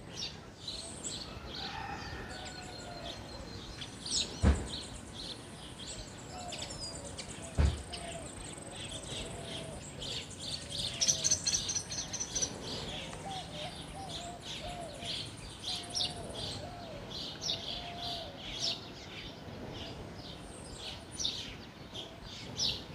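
Small birds chirping and calling in the background, a steady scatter of short high chirps. Two sharp knocks stand out, about four and a half and seven and a half seconds in.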